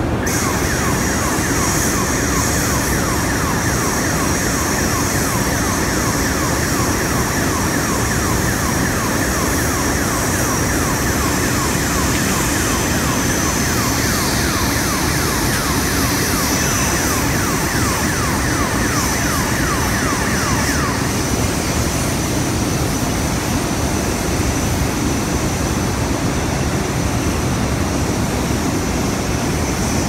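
Steady, loud roar of a blast furnace's open tap hole with molten iron and slag running out. An electronic warning alarm with a rapidly repeating sweeping tone sounds over it for about the first two-thirds, then stops.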